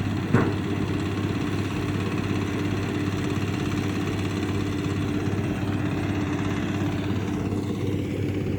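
Engine of rice harvesting machinery running steadily at a constant speed, with one sharp knock about half a second in.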